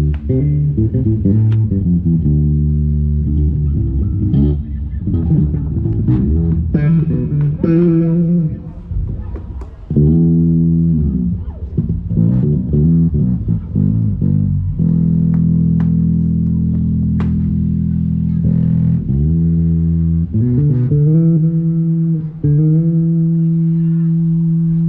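Electric bass guitar played on its own through the PA during a soundcheck: runs of notes with slides, and a note held for a few seconds just past the middle.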